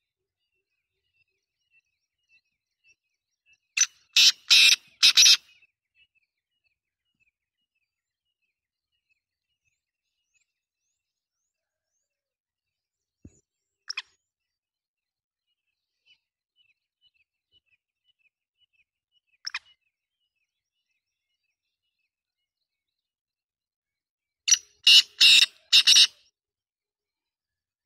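Black francolin (kala teetar) calling: a loud phrase of about five harsh notes, given twice, once about four seconds in and again near the end. Between the phrases come two short single notes and faint, rapid ticking chirps.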